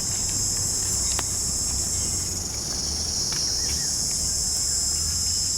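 A chorus of insects keeps up a steady, high-pitched buzzing drone.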